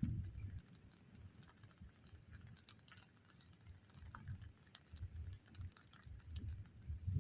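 Light rain pattering in scattered faint ticks, over irregular low rumbles.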